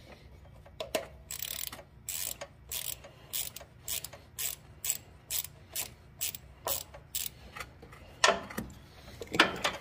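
Ratchet wrench with an extended socket clicking in quick, short strokes, about three a second, as it backs out the 10 mm oil drain plug on a Kawasaki FS730V engine. Two louder knocks come near the end.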